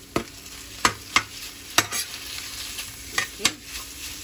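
Minced turkey sizzling as it is scraped from a bowl into a stainless-steel frying pan of browned garlic and onion, over a steady frying hiss. A utensil knocks sharply against the bowl and pan about seven times.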